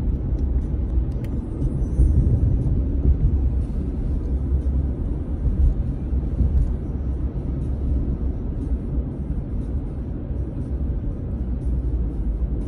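Steady low road and engine rumble heard inside the cabin of a moving car.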